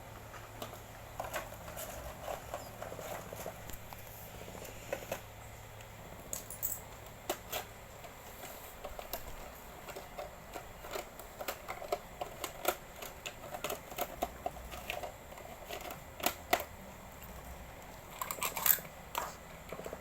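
Package being handled and opened: scattered clicks, crackles and rustles, with a busier run of them near the end.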